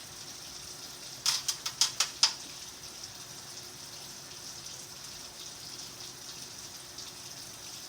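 A quick run of about six sharp clicks or taps in about a second, over a steady faint hiss.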